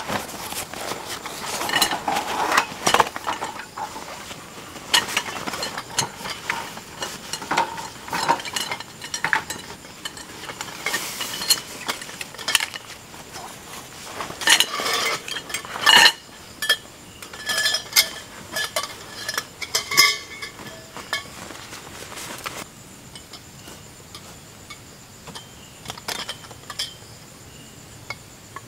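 Camp gear being handled: nylon bags rustling and a dense run of small metallic clicks and clinks as the metal poles and frame of a folding camp chair are unpacked and fitted together. The handling thins out to a few scattered clicks about two-thirds of the way through.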